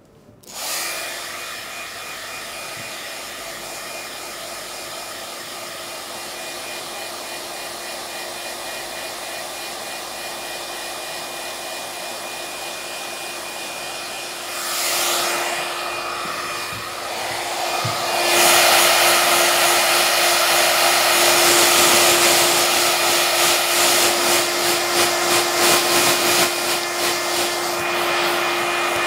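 iTeraCare handheld terahertz wand's fan blowing warm air, like a small hair dryer. It starts just under a second in with a steady whirring hum, then gets louder with a wavering level over the last third.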